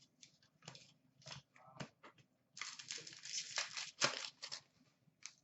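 Trading cards being handled: a series of short scrapes and clicks as cards slide off one another, with a longer stretch of rustling in the middle.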